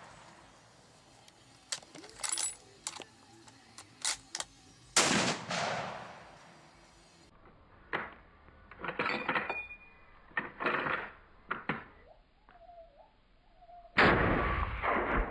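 Remington 770 bolt-action rifle in .30-06 fired twice, about five seconds in and again near the end, each a sharp shot that fades over about a second. Between the shots come clusters of metallic clicks and clacks as the bolt is worked open, the case is ejected and a fresh round is chambered.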